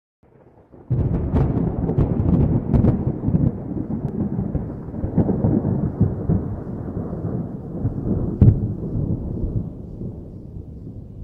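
Thunder rolling: a deep rumble breaks in about a second in with several sharp cracks, swells again with the loudest crack near the end, then slowly dies away.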